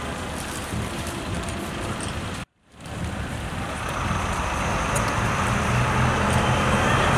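Steady road-traffic noise with a low engine hum. The sound cuts out completely for a moment about two and a half seconds in, then comes back louder.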